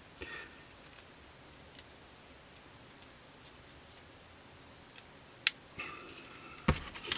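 Plastic model kit parts being handled: a few faint ticks and taps of the fuselage half and cockpit parts in the fingers, with two sharper clicks near the end, the first about five and a half seconds in.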